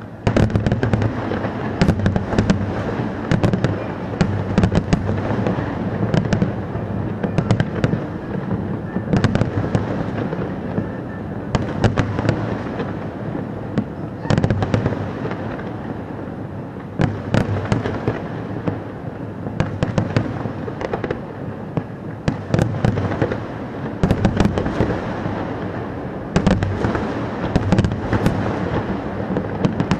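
Fireworks display: a dense, continuous run of sharp bangs and crackling bursts over a low rumble. It starts suddenly just after the opening and has several louder flurries.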